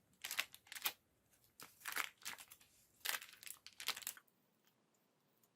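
Crinkling and rustling in a string of short, scratchy bursts, which stops about four seconds in.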